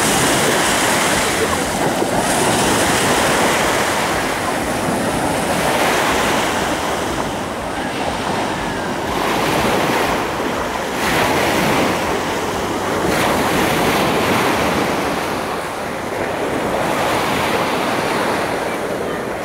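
Ocean surf breaking and washing up the beach: a continuous rushing that swells and eases every few seconds. Wind buffets the microphone underneath.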